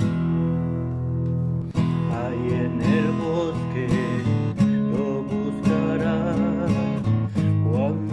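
Acoustic guitar music with strummed chords. About two seconds in, a wavering melodic lead line joins.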